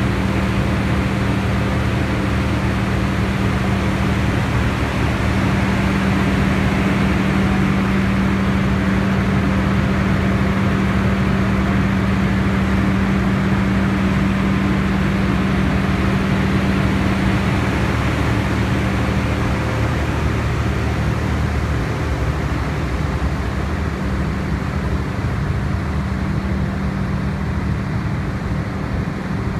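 Silenced 200kVA Cummins diesel generator running steadily under load on a load test, a constant engine hum with a strong steady tone, a little fainter near the end.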